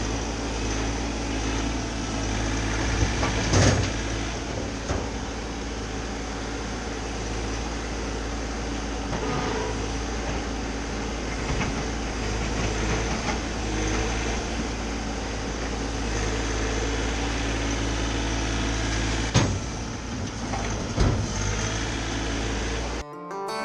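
Bobcat mini-excavator's diesel engine running steadily, with a few sharp knocks, the loudest about three and a half seconds in and again near the end.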